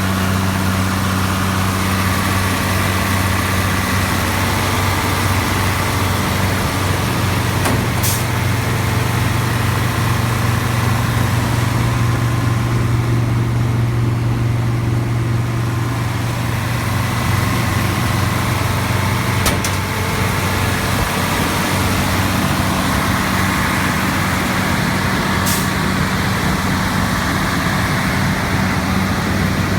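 New Holland TX68 combine harvester's 9.6-litre Iveco six-cylinder turbo diesel idling steadily. Its note changes in the middle for about twelve seconds, with a few faint clicks.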